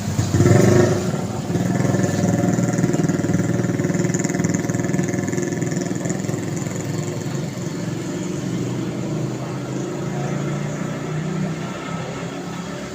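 Street traffic: a motor vehicle engine running close by, with a loud surge about half a second in, then a steady engine note that slowly fades.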